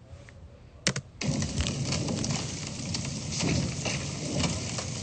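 A click about a second in, then a dense crackling sizzle from a vape pen's coil firing as it is drawn on in a long drag.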